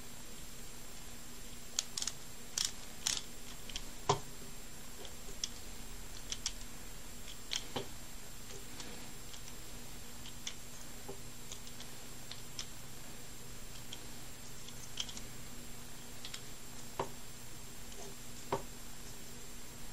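Scattered small clicks and taps as a screwdriver turns screws into a 3D-printed plastic puzzle core and the pieces are handled, over a steady faint hum.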